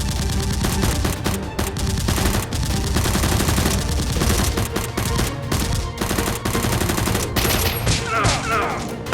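Rapid, continuous automatic gunfire, a dense volley of shots, with background music underneath.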